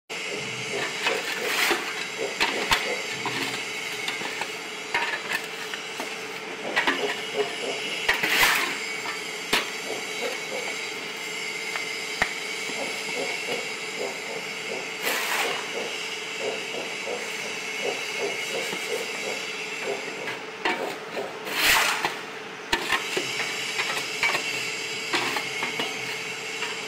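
Mobile egg-laying concrete block making machine (4-45 type) running, its electric vibration motor giving a steady hum and rattle. Sharp metal clanks and knocks come from the mould frame and levers as it is worked, the loudest about 8 seconds, 15 seconds and 22 seconds in.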